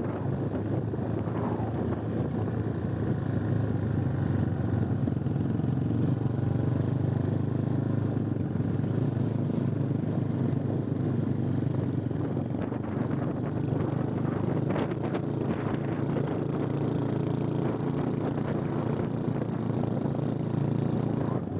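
Motorcycle engine running at a steady cruise while riding, with wind and road noise over it.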